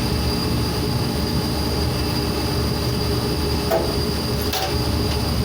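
Loud, steady industrial machinery drone: a low rumble with a steady high whine over it, and a couple of faint brief clicks about four seconds in.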